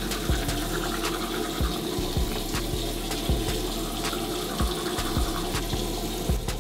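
Water running steadily from a tap into a bathroom sink, with music with a steady beat playing underneath.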